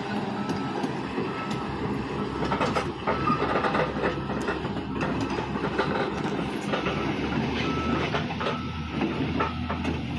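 Cummins diesel engine of a LiuGong 939E crawler excavator running under load, with irregular clanking and clicking from its steel tracks as the machine turns.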